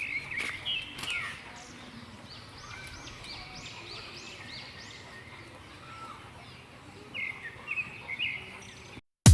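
Birds chirping over quiet outdoor background noise: a run of short, evenly repeated high calls in the middle, then a few lower chirps near the end. A few faint clicks sound about a second in.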